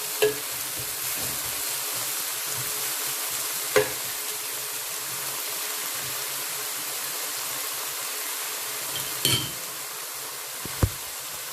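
Vegetables frying in oil in a pan over a lowered flame: a steady sizzle, with four sharp clicks of a utensil against the pan.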